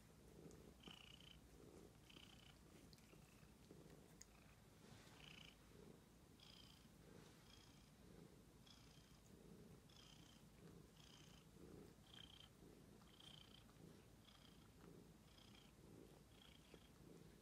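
Domestic cat purring, faint and close, the rumble swelling and easing in a steady rhythm with a soft breathy hiss on each cycle.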